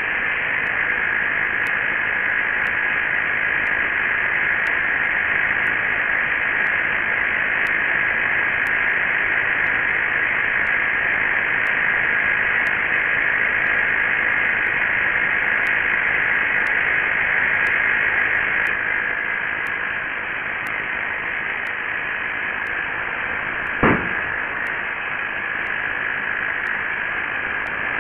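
Two 12-volt air compressors running together in parallel, a steady mechanical hum with a high whine, pumping toward high pressure. A brief sharp click about three quarters of the way through.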